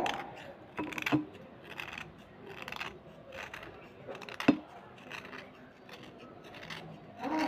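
Small steel knife blade scraping a slate pencil, shaving off powder in a series of short, crunchy strokes about one or two a second. A sharp click a little past the middle is the loudest moment.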